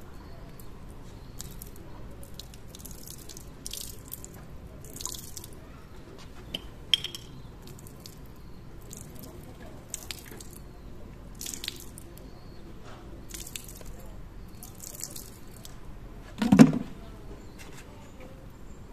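Water poured from a plastic bottle onto a wax-treated wooden board, splashing and dripping off its edge onto the pavement in short bursts. A single louder thump comes near the end.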